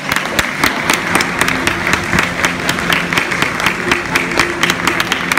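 Football crowd clapping in a stadium stand, many irregular hand claps, with held sung notes underneath.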